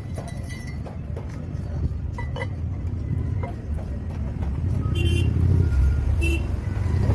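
Light metallic clinks, a few ringing, as a metal brake-drum sleeve is handled and seated in a motorcycle wheel's drum hub, over a steady low rumble that grows louder in the second half.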